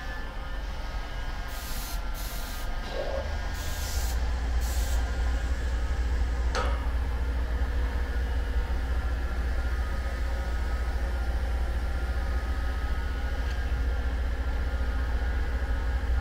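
Several short hisses of compressed air in a row between about two and five seconds in, over a steady low machine rumble, with a single sharp click about six and a half seconds in.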